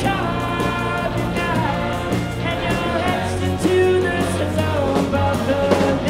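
Live music: a large choir singing over an orchestral rock band of strings, clarinet, electric guitar, drum kit and keyboard, playing a steady beat.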